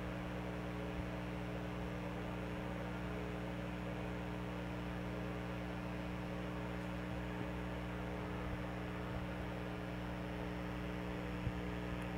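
Steady electrical hum with several low pitches held unchanging throughout, and a faint tick near the end.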